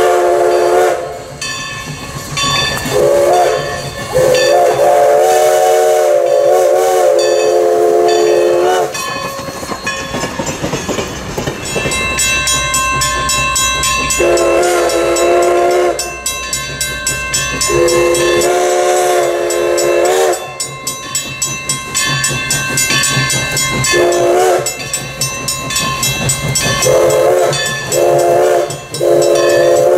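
Everett Railroad No. 11, an Alco 2-6-0 steam locomotive, sounding its chime steam whistle in repeated long and short blasts in the long-long-short-long pattern of a grade-crossing signal. Between the blasts the engine's exhaust chuffs, with rail clatter and steam hiss, growing as it approaches.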